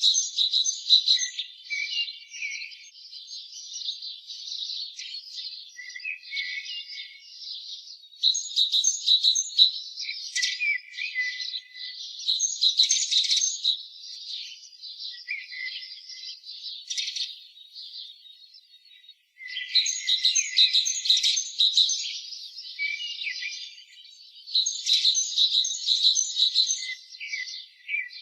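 Birds chirping in dense bursts of overlapping high calls, each burst lasting a few seconds, with a short pause about two-thirds of the way through.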